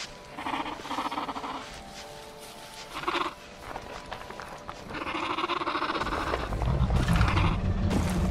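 Calls of small predatory dinosaurs, several short cries in turn. A deep rumble swells in over the last couple of seconds.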